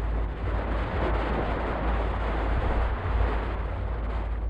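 Wind buffeting the microphone on a sailing yacht under way: a steady low rumble over a continuous rush of wind and sea.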